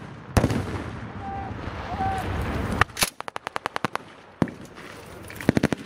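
Bipod-mounted German WWII-style machine gun firing short rapid bursts: one burst about three seconds in and another starting near the end, with a single shot near the start and another between the bursts. A low rumble fills the first half.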